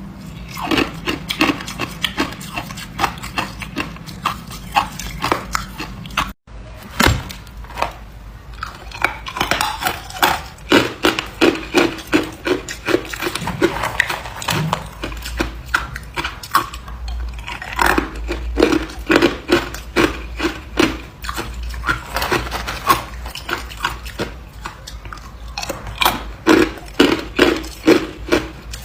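Close-up crunching of hard ice being bitten and chewed, a rapid run of sharp cracks, two to four a second, with a very brief break a little over six seconds in.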